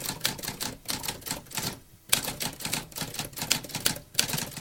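Mechanical typewriter keys clacking in quick, uneven succession. The typing breaks off briefly a little under two seconds in, then resumes and stops abruptly at the end.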